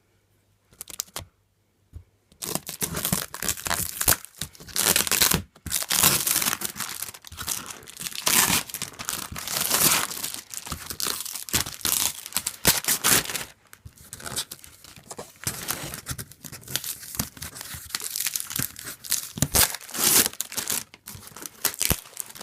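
Shipping packaging being torn and crumpled by hand, in uneven ripping and crinkling bursts that start about two seconds in.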